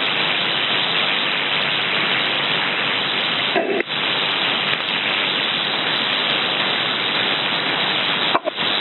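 Shortwave single-sideband (USB) receiver static on the 7770 kHz HF channel, heard as a steady hiss between voice transmissions. It dips briefly with a short blip about three and a half seconds in and again near the end.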